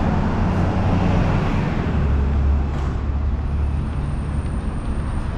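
Road traffic noise with the low rumble of a vehicle engine passing close by, heaviest about two seconds in.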